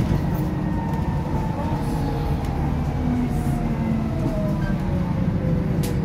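A bus heard from inside the passenger saloon while under way: steady engine and road rumble, with a faint whine that slowly falls in pitch.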